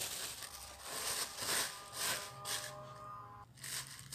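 Rustling and scraping of a hand working floured dough against the sides of a plastic mixing bowl, in several short bursts with a brief pause near the end.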